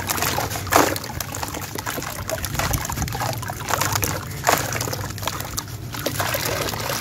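A grey sand chunk crumbled in the hands, grit pouring and trickling between the fingers into a plastic tub with a steady crackling hiss. Louder crunches come about a second in and again about four and a half seconds in.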